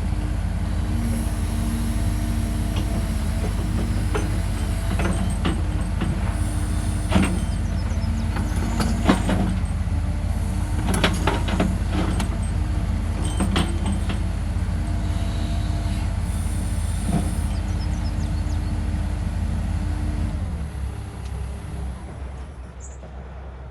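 Caterpillar 313FL hydraulic excavator's diesel engine running steadily, with a scattering of sharp clanks and knocks in the middle. About twenty seconds in, the engine sound drops away and the level falls.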